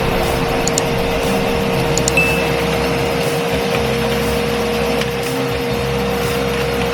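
Kärcher WD2 wet and dry vacuum cleaner's motor running at full speed, a steady whine over rushing air, having just spun up.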